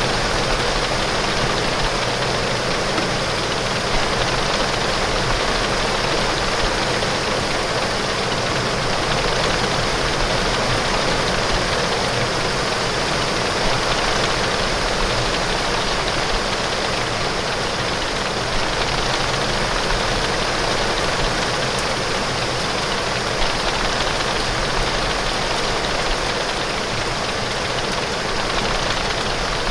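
Steady heavy rain beating on window glass, an even wash of noise with a low rumble underneath.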